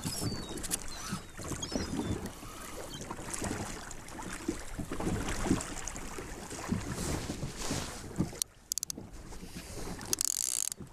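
Choppy sea lapping and slapping against the hull of a small wooden boat as it rocks, with uneven knocks and thuds and wind on the microphone; a short hiss near the end.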